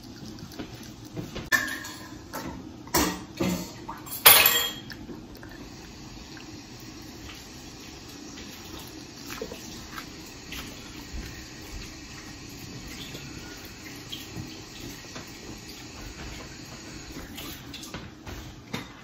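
Dishes and cutlery clattering a handful of times, the loudest about four seconds in, followed by a faint steady hiss.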